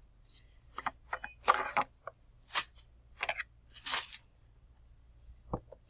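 Crumpled plastic wrap and aluminium foil crinkling in several irregular bursts as they are pushed across a table, loudest about one and a half and four seconds in.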